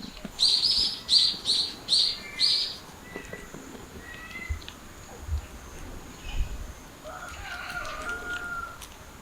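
Kittens mewing: five short, high-pitched cries about half a second apart, then quieter calls and a longer, lower meow near the end.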